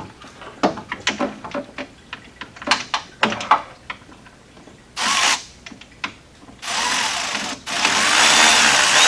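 Cordless power driver with a socket backing out a lower radiator mounting screw. A few light clicks and taps come first as the socket finds the screw. A short spin about five seconds in is followed by a longer run that pauses briefly and then keeps going, with a faint whine over the motor noise.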